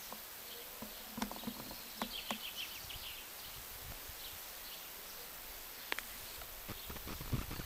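Outdoor ambience: a steady hiss with faint high chirps and scattered clicks, and low knocks and rumbles near the end.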